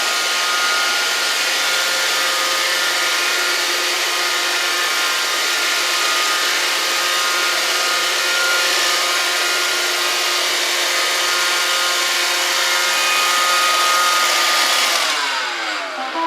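Roomba robot vacuum running: a steady whir of its vacuum motor and brushes with a high whine over it. Near the end the whine falls in pitch as the motors spin down.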